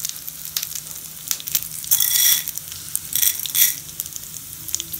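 Dried red chillies and chana dal frying in a little oil in a metal kadai: a steady crackling sizzle full of small pops. A metal spatula stirring them gives two louder stretches, about two seconds in and again around three and a half seconds in.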